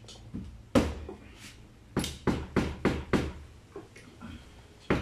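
Sharp, irregular knocks from hand work on a motorcycle's right-side engine cover: one about a second in, a quick run of four around two to three seconds in, and another near the end.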